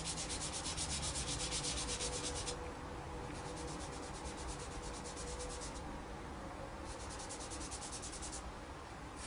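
A soft dry pastel stick scratching across paper in rapid back-and-forth hatching strokes, in three bouts with short pauses between them.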